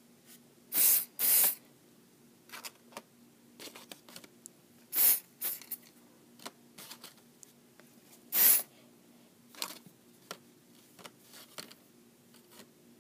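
Aerosol hairspray can spraying in four short bursts: two quick ones about a second in, one near the middle and a last one a little past eight seconds, with faint clicks and taps between them.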